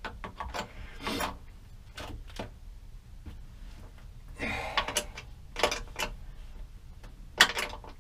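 Small hand tool clicking and scraping on lead-acid battery terminal bolts as the cables are taken off. Scattered short metallic clicks, the loudest about seven and a half seconds in.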